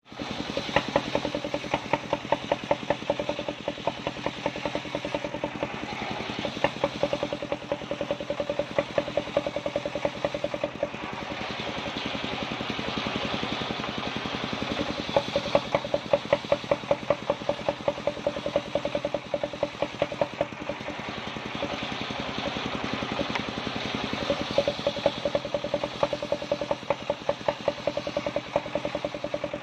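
Engine-driven circular saw with a large disc blade ripping kapok (randu) wood: the engine runs steadily with a regular pulsing beat, and the hiss of the blade cutting the soft wood comes and goes.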